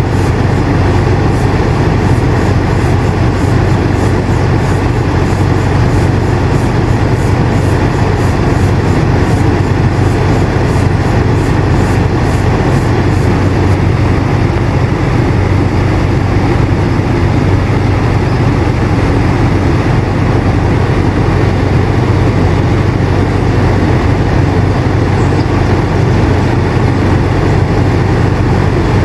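Air conditioner running steadily: a constant low hum under an even rushing of air.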